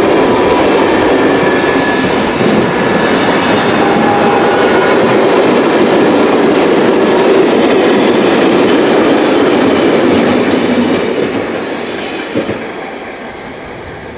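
Freight train rolling past, a loud steady rumble and clatter of wagon wheels on the rails with faint thin squeals now and then, typical of fixed-wheelbase wagons' flanges running against the rail in a tight curve. The sound fades away over the last few seconds.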